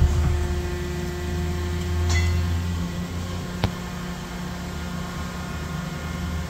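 The enclosure door of a DMG Mori NTX 1000 CNC mill-turn machine shuts with a thump. The machine's spindle then runs with a steady low hum, which drops lower about three seconds in. Two sharp clinks come about two and three and a half seconds in.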